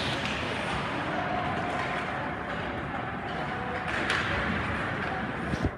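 Ice hockey game sounds in a rink: skates scraping on the ice, with a few sharp clacks of sticks and puck and a thud near the end.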